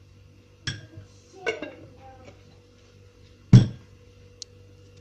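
A spoon knocking against a dish three times as a spoonful of honey is added to grated onion; the third knock is the loudest.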